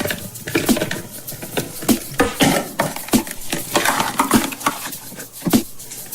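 Hands opening a Kinder Surprise chocolate egg: a quick run of clicks and taps from the plastic toy capsule, with rustling in between.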